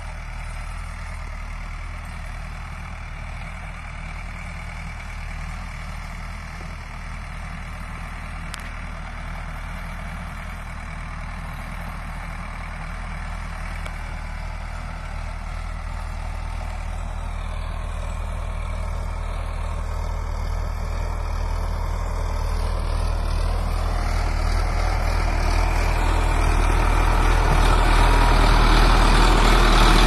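Sonalika DI 750 III tractor's diesel engine running steadily while pulling a cultivator through the soil, getting steadily louder over the second half as the tractor comes up close.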